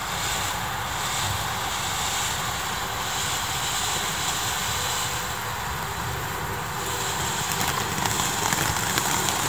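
Ground fountain firework spraying sparks with a steady hiss. Crackling builds over the last couple of seconds as the fountain bursts harder.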